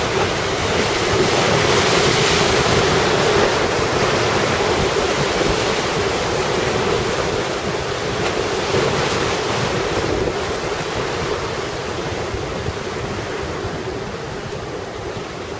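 Heavy surf from typhoon-driven swell breaking in rough open water and on the breakwater, with wind buffeting the microphone. It is loudest about two seconds in and slowly grows quieter over the last few seconds.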